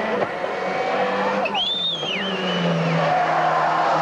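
Rally car's engine running hard as it approaches. A short tyre squeal on tarmac comes about a second and a half in, as the car corners.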